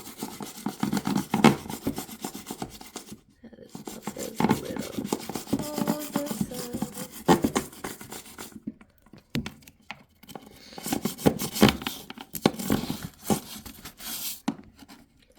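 Old, worn toothbrush scrubbing the plastic inside a Samsung washing machine's detergent-drawer housing in quick back-and-forth strokes. The scrubbing comes in several bursts with short pauses between them.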